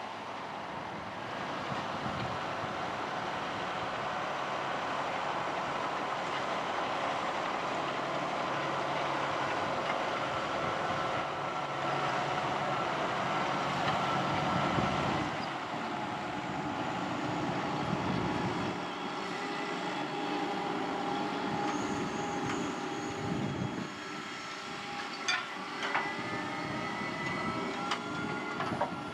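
Fendt 720 tractor working a plough, its engine running steadily under load and growing louder, then easing off after about halfway. Several sharp metallic clanks come near the end.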